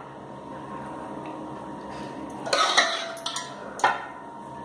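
Metal serving spoon scooping korma in a metal cooking pot, scraping softly and then knocking against the pot in about three sharp clinks in the second half.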